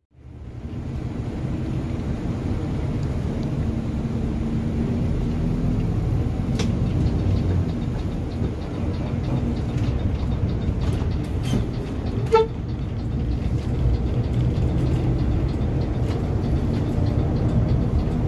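Intercity coach under way, heard from on board: a steady engine and road rumble, with one short horn toot about twelve seconds in.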